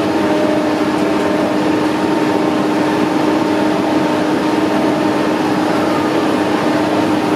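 Steady mechanical hum with a low held tone: a winch hauling a lifeboat up its slipway on a cable.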